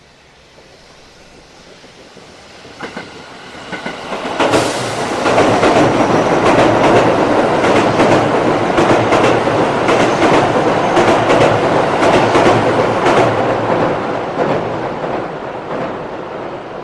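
Freight train passing on the Tōkaidō Main Line: its rumble builds over the first few seconds, then a loud steady run of wheel noise with rapid clickety-clack over the rail joints, easing off in the last few seconds.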